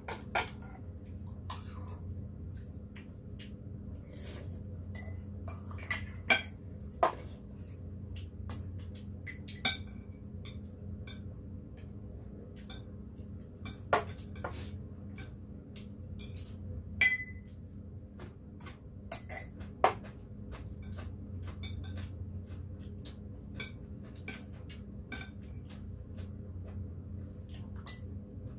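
Metal spoons and chopsticks clinking and scraping against ceramic bowls and plates while eating. Scattered light clicks with a few sharper, louder clinks, over a steady low hum.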